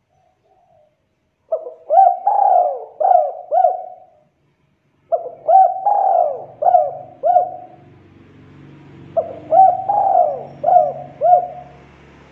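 Spotted dove cooing: three phrases of four or five notes each, a second or so apart. A faint low hum comes in about halfway.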